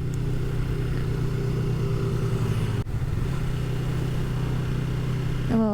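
Motorcycle engine running steadily while riding, with a brief drop about three seconds in.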